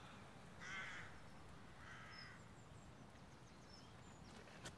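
Faint outdoor ambience with two short harsh bird calls about a second apart, followed by a few faint high chirps of small birds.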